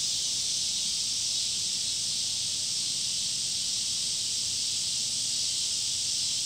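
Steady high hiss of background noise, with no other sound standing out.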